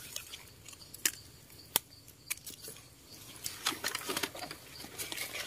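Irregular small crackles and snaps of dry leaf litter and twigs on the forest floor, scattered at first and busier from about three and a half seconds in.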